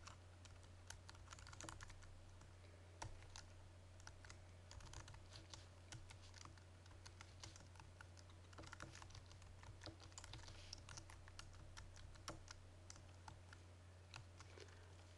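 Faint typing on a computer keyboard: an irregular run of keystrokes, over a steady low hum.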